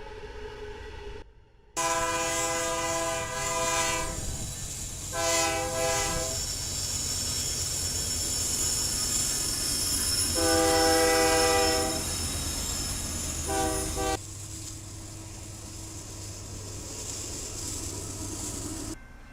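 Train passing with its locomotive air horn blowing four blasts: a long one, a short one, another long one and a short one that is cut off, over the steady rumble and rail noise of the moving train. Before and after, quieter train rumble, with abrupt cuts between the pieces.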